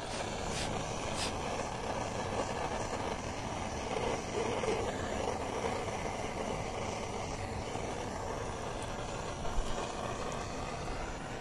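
Butane canister torch burning with a steady hiss, its flame heating a stainless-steel motorcycle muffler to tint it a titanium colour.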